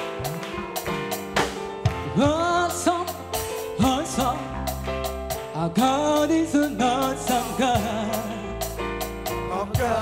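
Live gospel praise band playing, with a woman singing lead into a microphone over drum hits and bass; her voice comes in about two seconds in with sliding, ornamented lines.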